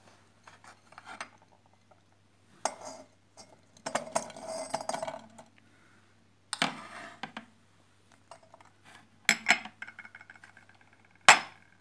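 Kitchenware clinking and clattering in a series of short, separate bursts during food preparation, with one sharp, loud clack near the end.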